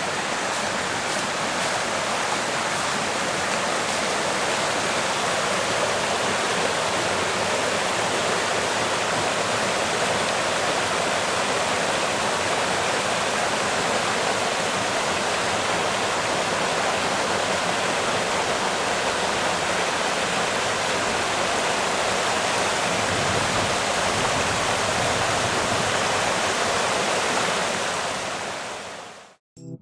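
A waterfall on a small river, its water pouring in a steady, even rush that fades out near the end.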